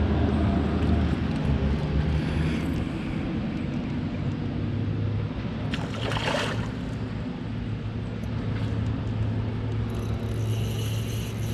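A hooked fish thrashing and splashing briefly at the water's surface about six seconds in, over a steady low hum.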